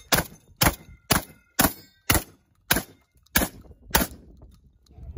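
Shotgun firing eight rapid shots, about two a second, each a sharp crack, with a faint ringing after some of them.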